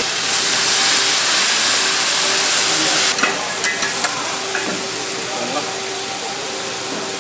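Noodles sizzling and frying on a hot griddle, a loud, even hiss that eases off after about three seconds. A few sharp clicks come a little after the middle.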